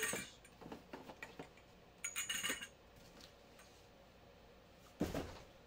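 Grow-tent frame parts, metal poles and plastic connectors, clinking and clattering as they are handled in a cardboard box. Clusters of clinks come just after the start and about two seconds in, and a single dull thump comes about five seconds in.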